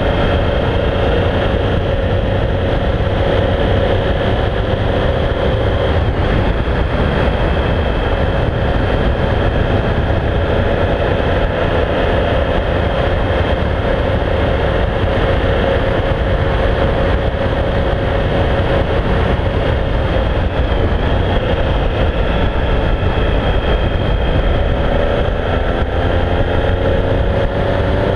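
Triumph Speed Triple's three-cylinder engine pulling steadily at road speed, heard from the bike under heavy wind rumble. Near the end the engine note rises as the bike accelerates.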